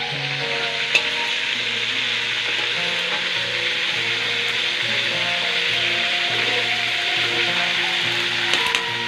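Fish and crab pieces sizzling steadily in hot oil in a wok over a wood fire, with a sharp clack of the metal spatula against the wok about a second in and a couple more near the end. Background music plays underneath.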